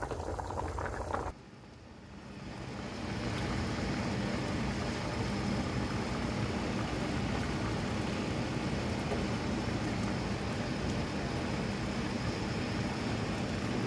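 A pot of soup boiling, cut off abruptly about a second in; after a short lull a steady rushing noise with a low hum fades in and holds.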